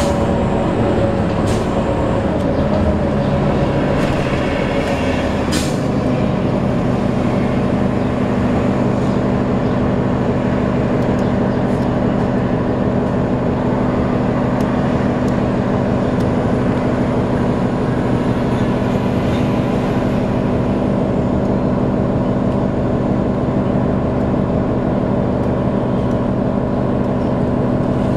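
Inside a 2008 New Flyer D40LF diesel transit bus as it slows to a stop, with a few short sharp sounds in the first several seconds. Then the diesel engine idles steadily while the bus stands still.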